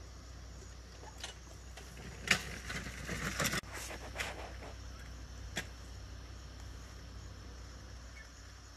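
Rustling and sharp knocks from the camera being handled against the leaves. They come in a cluster from about two to four seconds in and stop abruptly, with one more click a little later. Underneath runs a steady low hum and a faint, steady high insect trill.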